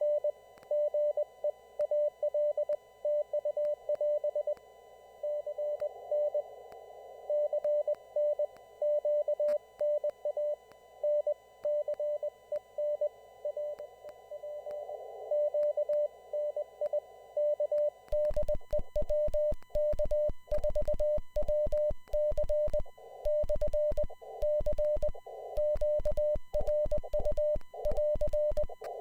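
Morse code (CW) heard on an amateur radio receiver: a steady tone near 600 Hz keyed in dots and dashes over a narrow band of filtered hiss. About two-thirds of the way through, a louder, cleaner keyed signal takes over, with a click on each element, and the hiss drops away.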